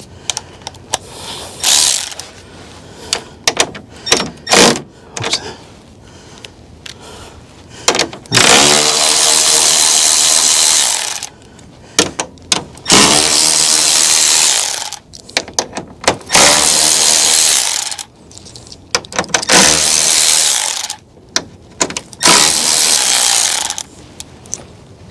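A Milwaukee cordless ratchet runs out 10 mm screws in about five whirring runs of one and a half to three seconds each, the first one rising as the motor spins up. Before the runs there are only a few clicks and taps as the socket is fitted onto the screws.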